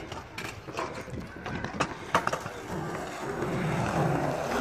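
Several sharp clacks of hard wheels and decks on concrete, then a skateboard rolling close by on concrete, its rumble building from about halfway through.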